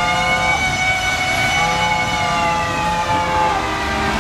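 Several long, held vehicle warning tones at different pitches sound together, one of them sliding slowly down in pitch about halfway through, over the low running of engines and traffic.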